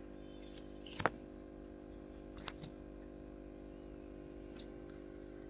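Steady low hum of an aquarium air pump, with a sharp click about a second in and a softer click about two and a half seconds in.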